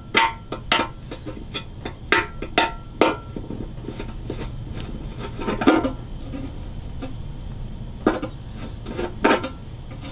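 Screwdriver working at the screws in an old Dobro resonator guitar's neck: irregular sharp clicks and knocks, a few with a brief ringing tone. A steady low hum runs underneath.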